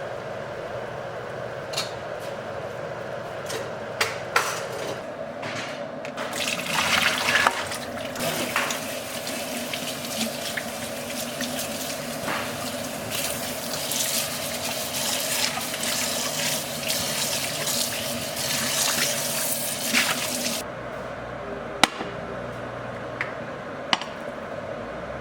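Kitchen tap running into a sink, starting about six seconds in and cutting off suddenly about five seconds before the end. Scattered clinks and knocks of dishes sound before and after, over a steady low hum.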